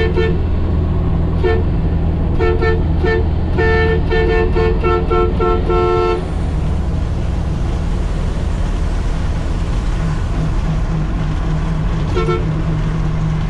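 A two-tone vehicle horn sounding a rapid series of short toots for about six seconds, then once more briefly near the end, over the steady low drone of the Nissan CK31L truck's diesel engine running on the road.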